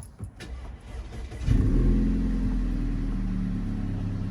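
Car engine starting about a second and a half in, flaring up briefly and then settling into a steady idle. A few light clicks come before it.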